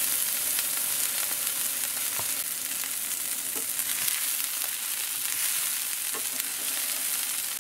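Diced celery, onion and carrot sizzling steadily in hot oil in a cast iron pan, with a wooden spatula scraping through them now and then. The strong sizzle is the sign of a very hot pan.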